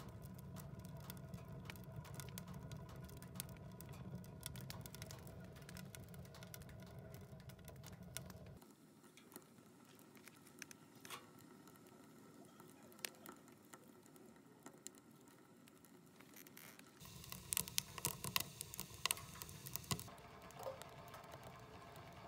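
Wood fire crackling inside a small steel camping rocket stove: a faint, irregular run of small snaps and pops, with a few louder pops near the end.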